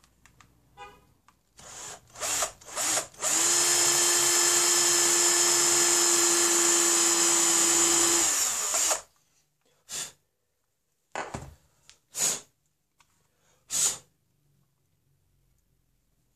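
Cordless drill pre-drilling a pilot hole in a wooden gunstock. A few short trigger blips are followed by about five seconds of steady drilling at an even speed, which winds down when the trigger is released. Four short, sharp noises follow over the next few seconds.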